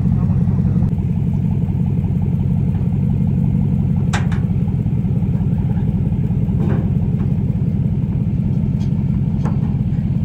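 Lifted GMC Sierra pickup's engine running with a steady, loud low rumble as it drives slowly down off a flatbed trailer. Three sharp knocks come through during the descent.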